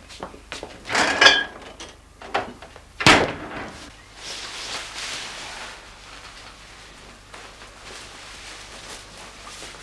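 Household handling sounds. There is a clatter with a brief squeak about a second in, then a single sharp thud like a door shutting about three seconds in, followed by a soft rustle of clothing.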